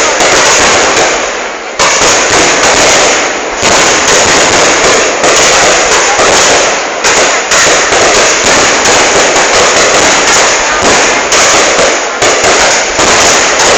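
Loud fireworks display: a dense, continuous barrage of rapid bangs and crackling, with only brief lulls between volleys.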